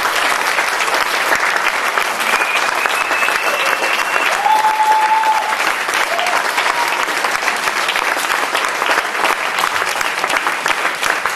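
Live audience applauding steadily, a dense crackle of many hands clapping.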